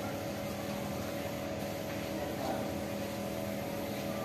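A steady mechanical hum holding a few fixed tones, like a motor or engine running at a distance.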